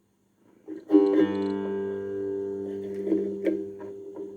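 Cigar box guitar in open G tuning, played through a small practice amp on a clean channel: one strummed open chord about a second in rings on and slowly dies away, with a couple of lighter plucked notes near the end.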